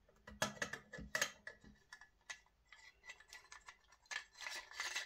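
Light metal clicks and scrapes of a gas-blowback airsoft rifle's bolt carrier and charging handle being fitted and slid into the upper receiver. A longer run of sliding and scraping comes about four seconds in.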